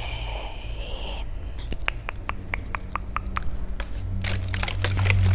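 Tongue clicks close to the microphone: a run of sharp single clicks at about five a second, turning into denser crackling clicks over a low hum about four seconds in.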